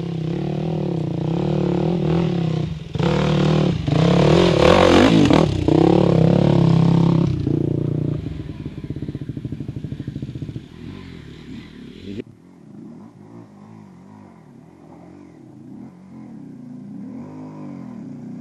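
Off-road enduro motorcycle engine revving hard under load on a steep dirt climb, loudest for a few seconds, then settling to a fast, even pulsing. The sound drops off suddenly about two-thirds of the way through, leaving a fainter engine further off.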